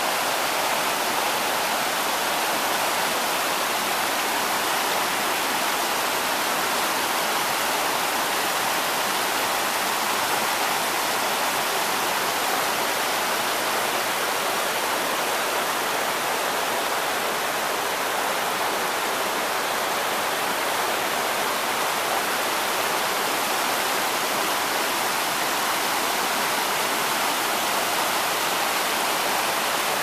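Shallow mountain brook rushing and splashing over rocks and gravel in small cascades: a steady rush of water that never lets up.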